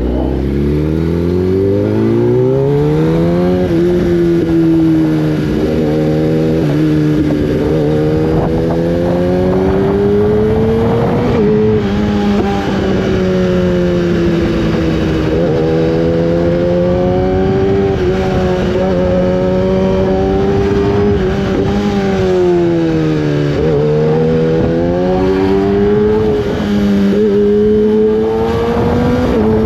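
A superbike's inline-four engine under way, revving up hard in the first few seconds as the bike accelerates, then held at a steady cruise whose pitch rises and dips several times as the throttle opens and closes.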